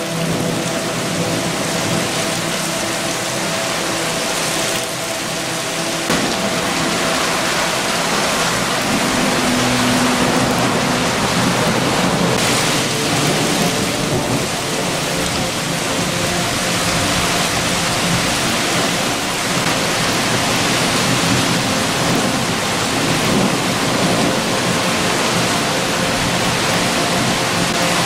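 Heavy rain falling steadily on leafy trees, an even, dense hiss with no breaks.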